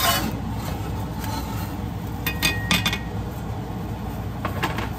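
Spatulas clinking and scraping against frying pans as chapatis are turned, with a quick run of sharp clinks about halfway through and a couple more near the end.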